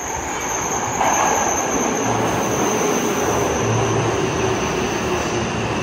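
Yokohama subway train pulling into an underground platform: a loud, steady rush of wheel and air noise that swells about a second in, with a faint whine sliding slightly down in pitch as the train slows.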